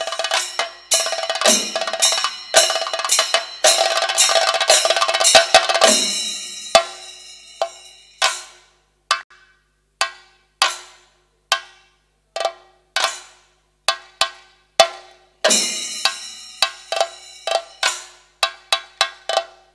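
Thayambaka played on chenda drums with ilathalam cymbals ringing. A dense run of strokes tapers off, then single strokes ring out one at a time with silent gaps between them, and dense playing resumes near the end.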